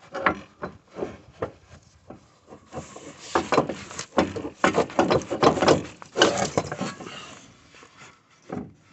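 Irregular clunks and rattles of metal parts, densest from about three seconds in, as an Audi's front driveshaft is wiggled and worked loose by hand at the wheel hub.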